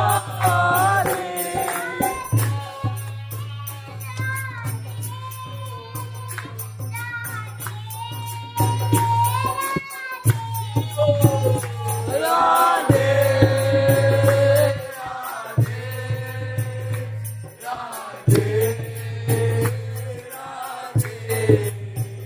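Singing, likely devotional, over a rhythmic jingling percussion. A steady low tone underneath breaks off and comes back several times.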